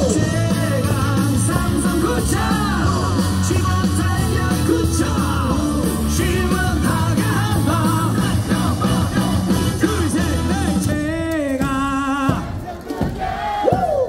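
Rock-style cheer music from stadium speakers with a crowd of baseball fans singing and shouting along. The music stops about 12 seconds in, and a loud falling cry follows near the end as the batter grounds out.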